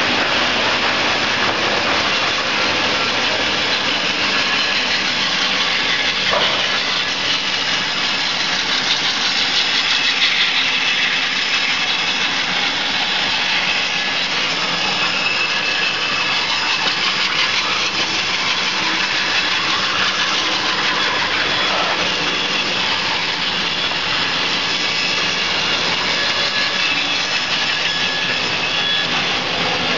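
Four-head horizontal lath slicing machine running steadily, its electric motors and saw heads giving a loud, continuous mechanical noise as a board is fed through by spiked rollers.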